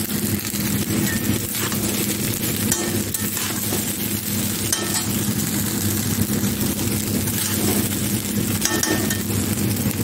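A steel spoon stirring and tossing fried rice in a kadhai, with a few light clinks of the spoon against the pan, over a steady low mechanical hum.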